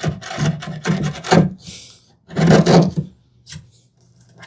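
Chisel paring and scraping the floor of a hinge mortise in cherry wood: several rasping strokes in the first second and a half, another about two and a half seconds in, then quieter.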